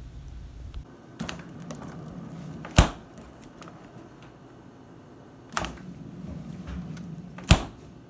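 A refrigerator door being shut twice: a sharp thud about three seconds in and another near the end, with softer sounds of the door being opened before each.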